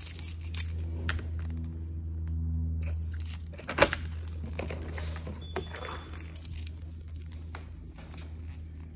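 A bunch of keys jangling as a key is put into a front-door lock and turned, a run of small clicks and rattles with one sharp click about four seconds in. A steady low hum runs underneath.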